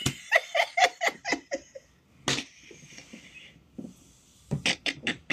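A woman laughing in a quick run of short bursts that trails off, with a soft breathy hiss in the middle and another short burst of laughter near the end.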